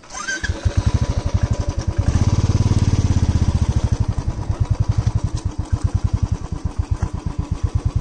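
Motorcycle engine starting about half a second in, then running with a rapid even putter, revved up briefly from about two to four seconds in.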